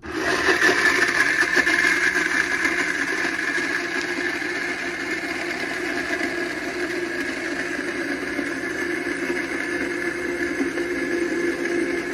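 Almond Cow plant-milk maker switching on and running, its motor spinning the blade that grinds cashews with water into cashew milk. It starts suddenly, a little louder for the first two seconds, then settles into an even hum with a higher whine over it.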